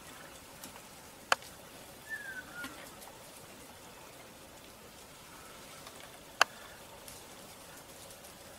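Faint forest background with two sharp clicks about five seconds apart, and a single short falling bird note shortly after the first click.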